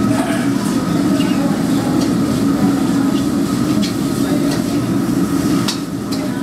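Steady rumble of a commercial gas wok burner, with a steel ladle clinking and scraping against the steel wok a handful of times as food is stir-fried.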